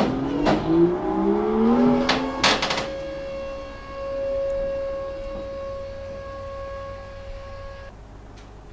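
Brabus 650's 4.0-litre biturbo V8 revving, its pitch rising and falling, with several sharp exhaust cracks in the first few seconds. It then settles into a steady held note that cuts off suddenly near the end.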